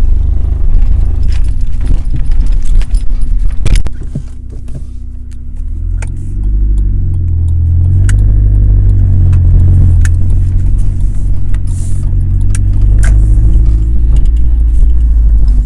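A 2001 Honda Accord coupe driven slowly over rough, potholed ground: the engine runs with a heavy low rumble, its pitch rising and falling about halfway through, while sharp knocks and rattles come from the car jolting over the bumps.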